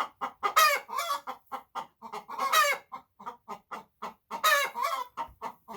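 Hens giving the egg song: rapid clucks, about four or five a second, broken by a loud drawn-out squawk about every two seconds. This is the call that follows a hen laying an egg.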